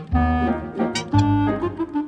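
Jazzy instrumental background music, a horn-like melody over low bass notes.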